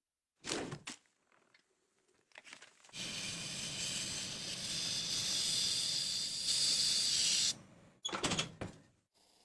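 A steady hiss that starts about three seconds in and lasts about four and a half seconds, with short bursts of hissing noise before and after it.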